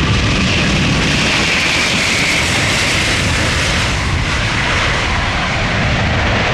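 Airbus A380's four turbofan engines at takeoff power, a loud, steady jet noise with deep rumble and a bright hiss that swells to its peak about two seconds in as the aircraft passes close by.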